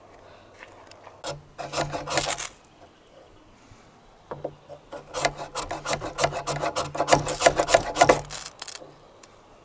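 Ferro rod scraped hard with the back of a knife blade, striking sparks onto lumps of pine sap to light it. A short run of quick scraping strokes, then a longer run of about four seconds.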